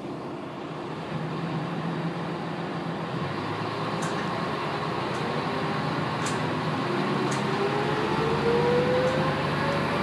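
Diesel railcar heard from inside the passenger cabin as it pulls away and accelerates. A steady engine drone runs under a whine that rises in pitch from about halfway through, and faint clicks come about once a second.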